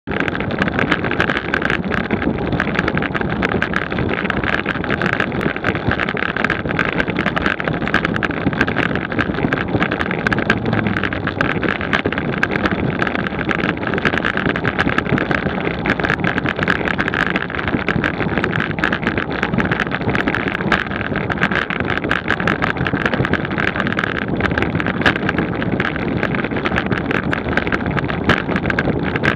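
Wind rushing over the microphone of a camera mounted on a road bike riding at about 23 mph, together with tyre and road noise. Frequent small clicks and rattles run through it.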